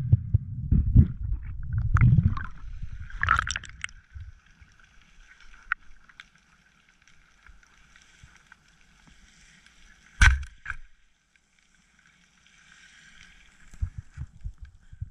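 Underwater sound heard through a diving camera: water rushing and rumbling against it for the first few seconds, then faint steady underwater crackling, with a sharp click about ten seconds in and a few low knocks near the end.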